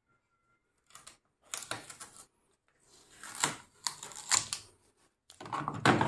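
Plastic clicks and knocks from a washing machine being handled, a string of separate clicks after a short silence, with denser rattling near the end.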